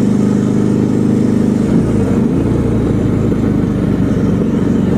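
Motorcycle engine running steadily on the road while being ridden. About two seconds in, its note shifts lower and becomes rougher, then settles back to a steady tone near the end.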